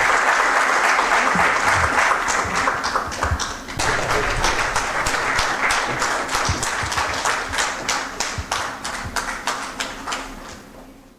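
Audience applauding: dense clapping at first, thinning to separate claps that fade away near the end.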